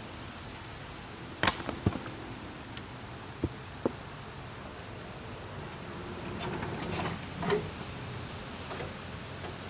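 Insects chirping steadily in a regular high pulse, with a few sharp knocks and clacks: two about one and a half to two seconds in, two more near four seconds, and a softer cluster about seven seconds in.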